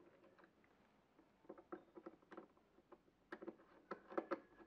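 Faint, irregular small clicks and scrapes of a small screwdriver working a screw terminal on a circuit board as a wire is fastened in, starting about a second and a half in.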